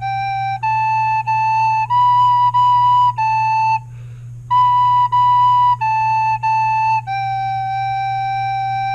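A soprano recorder plays a slow, simple melody on the three notes G, A and B. It plays the phrase G, A, A, B, B, A, pauses, then plays B, B, A, A and ends on a long held G.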